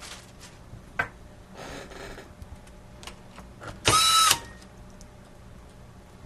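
A small electric screwdriver whirs briefly, a steady whine of about half a second, driving a screw that holds a laptop keyboard in place. Small clicks of handling come before it.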